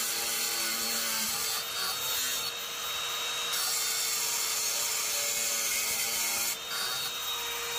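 Cordless Makita angle grinder running under load, its cut-off disc grinding through a steel bar with a steady motor whine and a grinding hiss, here powered by a homemade 5S3P pack of Samsung 30Q cells. The hiss eases briefly twice as the cut load changes.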